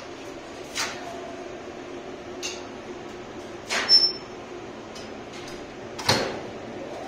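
Relays and contactors in a 1987 KONE relay elevator controller switching: four sharp clicks and clunks, the loudest a quick double click in the middle and a heavier clunk near the end, over a steady machine-room hum.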